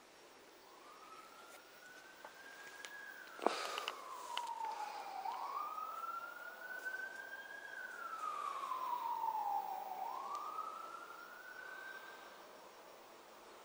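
A siren wailing, one tone sweeping slowly up and down through about two and a half cycles, growing louder and then fading away near the end. A sharp knock about three and a half seconds in.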